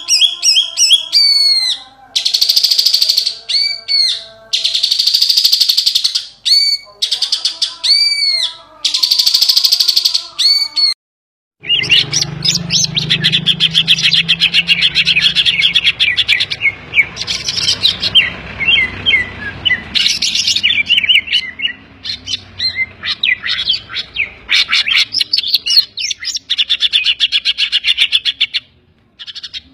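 Green leafbird (cucak ijo) singing loudly: first a repeated phrase of arched whistled notes, then, after a brief silence about eleven seconds in, a fast chattering run of rapid trills over a low background hum.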